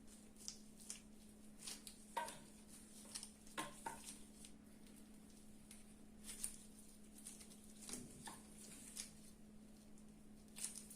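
Faint, scattered soft clicks and rustles of dried figs being split open by hand, over a steady low hum.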